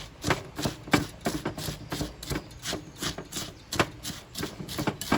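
Fast stirring of puffed rice in melted chocolate in a mixing bowl: a run of quick scraping, clattering strokes, about three a second, as the utensil knocks and scrapes against the bowl.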